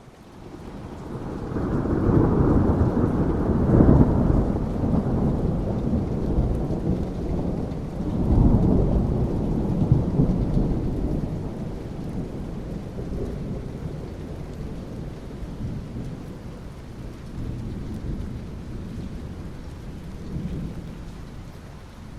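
A long thunder rumble over steady rain. The rumble builds in the first couple of seconds, swells again about eight seconds in, then slowly dies away while the rain hiss goes on.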